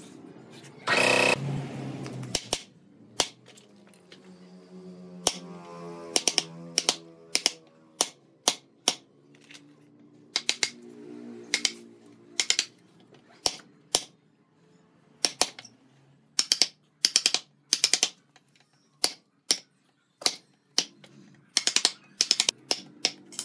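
Wooden mallet striking a steel chisel to cut a hinge recess into a wooden door frame: a long series of sharp knocks at an uneven pace, often two or three in quick succession. A brief louder noise comes about a second in.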